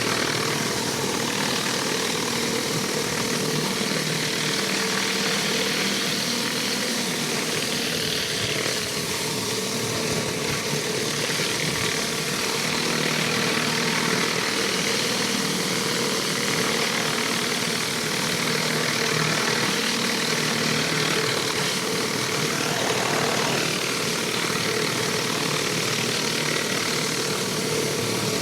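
Pressure washer engine running steadily, with a constant hiss over it.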